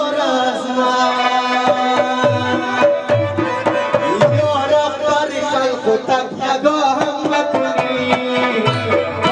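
Live Afghan music: a tabla drum plays under a male singer on a microphone with keyboard accompaniment. The tabla's deep strokes slide in pitch.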